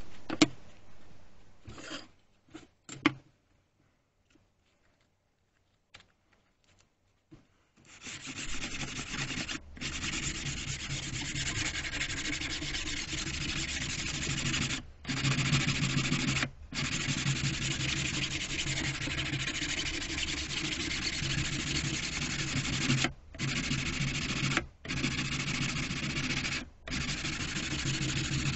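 A few sharp knocks, a pause, then a small electric power tool sanding or abrading, with a steady rasp over a motor hum from about eight seconds in. It stops for a moment several times and starts again.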